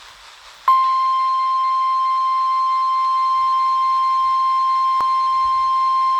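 NOAA Weather Radio warning alarm tone: a single steady 1050 Hz tone that starts abruptly just under a second in, the activation signal that precedes a tornado warning broadcast. A brief click about five seconds in.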